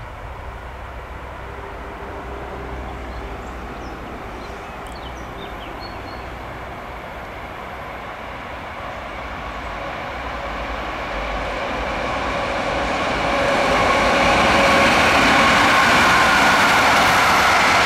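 A train approaching on the line, its rumble growing steadily louder through the first dozen seconds and staying loud near the end.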